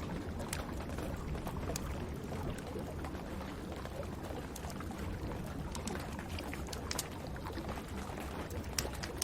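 Wood fire crackling in a fireplace, with irregular sharp pops and snaps over a steady rush of rain.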